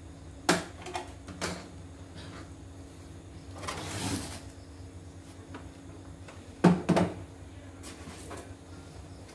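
Knocks and clunks of an embroidery machine and its white plastic embroidery unit being handled on a wooden workbench. A light knock comes about half a second in and another a second later, then a brushing rustle around four seconds in, and the loudest pair of knocks comes about seven seconds in.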